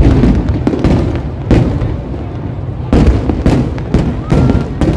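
Aerial fireworks shells bursting in a rapid string of sharp bangs, several a few seconds apart, with a low rumble from the bursts carrying on between them.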